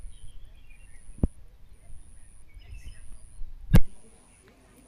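Outdoor ambience with wind rumbling on the phone's microphone, a few faint bird chirps and a high whine pulsing on and off about once a second. Two sharp knocks, a small one just past a second in and a louder one near the end, after which the wind rumble drops away.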